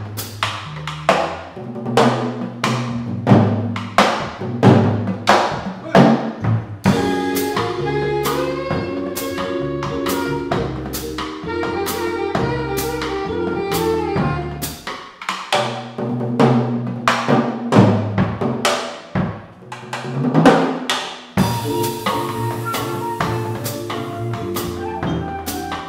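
Small live jazz band playing: drum-kit strikes and cymbals over upright bass, with keyboard and a woodwind holding longer notes. The drums are busiest for the first few seconds and again a little past the middle.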